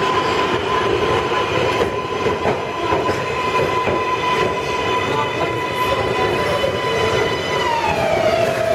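New York City Subway R142A train pulling into an underground station and braking to a stop. A rumble of wheels on rails runs under a steady high whine, and the whine slides down in pitch near the end as the train slows.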